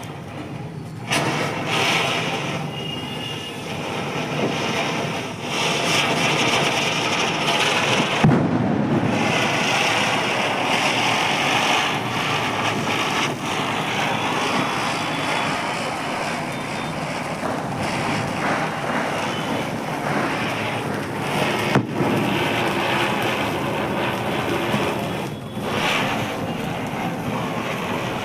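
Cock Brand ground spinner (zameen chakri) firecracker burning, a steady rushing hiss of spraying sparks. Two sharp cracks stand out, one about eight seconds in and another around twenty-two seconds.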